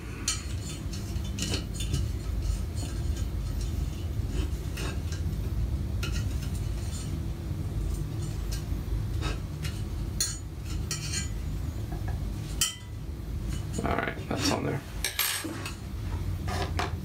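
Scattered small clicks and clinks of metal hardware handled by hand while the A-drive stepper motor and its mount are fitted to an aluminium-extrusion frame corner, over a steady low hum.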